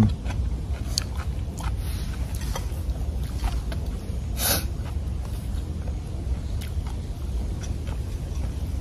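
People eating outdoors: faint chewing and small clicks of a spoon on plates and bowls, over a steady low rumble of wind on the microphone. One short, louder noisy sound about four and a half seconds in, as the man takes a bite.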